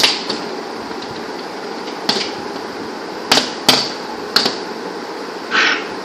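Toco toucan's bill knocking against the window glass and frame: about six sharp, irregularly spaced taps, with a short rasping sound near the end.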